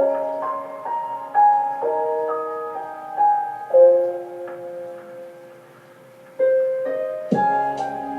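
Background piano music: a slow melody of single held notes that thins out for a moment, then comes back fuller with firmer chords near the end.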